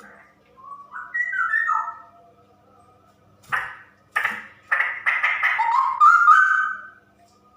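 Female straw-headed bulbul calling in loud, whistled phrases with gliding notes. There is one short phrase about a second in, then a longer, quicker run of notes in the second half that ends in a rising slur.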